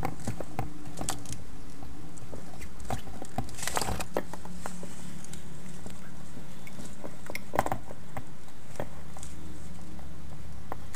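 Pond slider turtles (Trachemys scripta) scrabbling in a dry plastic tub: irregular light clicks and scratches of their claws on the plastic, with a few louder knocks about a third and two-thirds of the way in, over a steady low hum.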